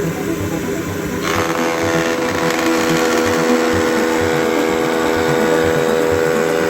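An electric power tool starts about a second in and runs steadily over background music with a regular beat.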